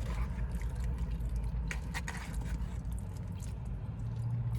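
Wet chewing and squishy mouth sounds of someone eating gravy-covered poutine, with a few sharp clicks about two seconds in, over a steady low rumble.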